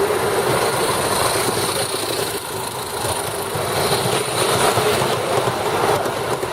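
A steam locomotive running: a steady rumble and hiss.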